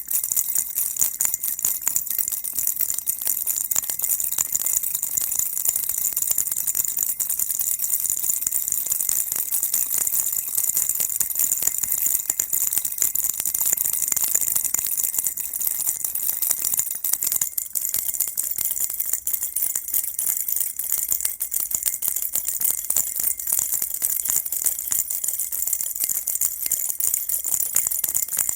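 Baby rattle shaken steadily and quickly: a dense, even rattling made of many tiny clicks, with no pauses.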